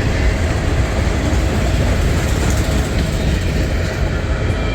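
Freight cars of a long mixed freight train rolling past: a steady rumble of steel wheels on the rails.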